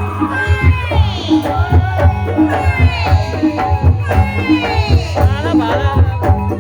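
Ebeg accompaniment music, Javanese gamelan-style, with drums beating a steady rhythm under pitched percussion and a gliding melody line.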